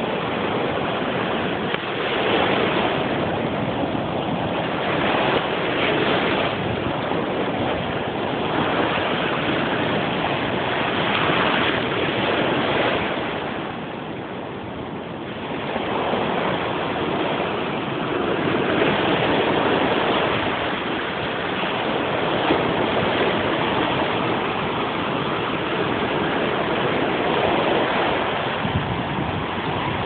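Rough sea surf breaking among rocks and washing up a sandy beach: a continuous rush of churning water that swells and ebbs with the waves, easing briefly about halfway through.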